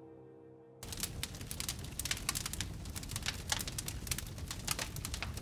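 Ambient music fading out, then, about a second in, a wood campfire crackling with many sharp, irregular pops.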